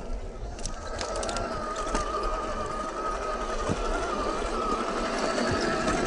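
Electric 550 motor and drivetrain of an Axial SCX10 II RC crawler whining steadily as it climbs a dirt slope, with a few sharp clicks about a second in.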